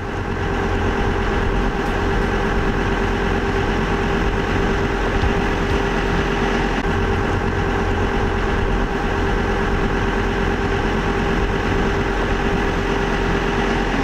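Fishing boat's engine running steadily under way, a constant low drone with a held hum over it.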